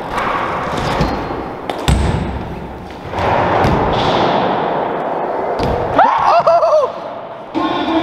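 BMX bike riding on wooden skatepark ramps: tyres rolling with a steady rush over the wood, and thuds from the bike hitting the ramp surface, the heaviest about two seconds in.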